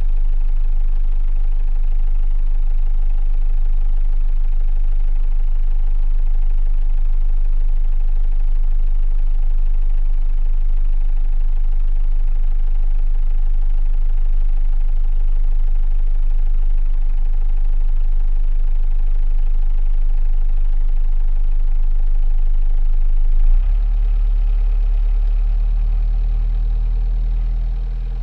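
Sailboat's inboard diesel engine running steadily, heard through the hull from inside the rear cabin as a strong deep drone. About 23 seconds in, its note changes, with a short jump in level followed by a fuller low rumble.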